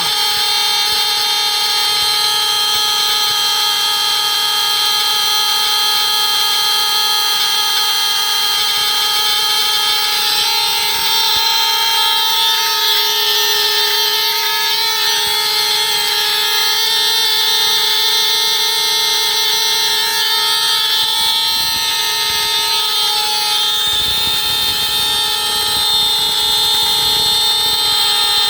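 Hudson Mfg Co Model 200 security and fire alarms' electric horns sounding continuously, one loud, steady, unbroken tone, set off by hair-dryer heat on their heat sensors.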